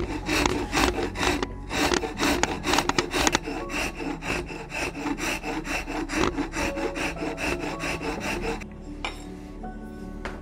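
Hand file scraping across the wooden comb nose of a shotgun stock pattern in quick, even back-and-forth strokes, about three or four a second, stopping near the end. Background music runs underneath.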